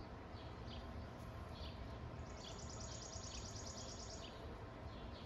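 Quiet outdoor background with birds chirping now and then, and a fast, high trill lasting about two seconds in the middle.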